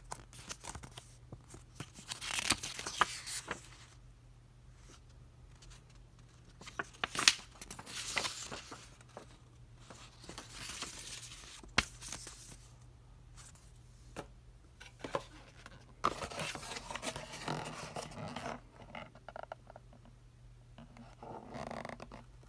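Cardboard toy box being handled and opened: intermittent scraping and rustling of the cardboard with several sharp clicks.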